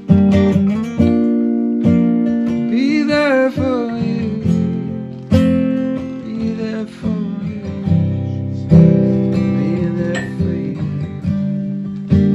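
Acoustic guitar strumming chords that ring out, in an instrumental passage of a song.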